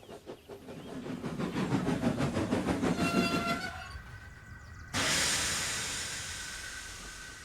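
Steam locomotive chuffing rapidly, the beats running together into a low rumble, with a short whistle about three seconds in. About five seconds in comes a sudden loud hiss of released steam that slowly fades.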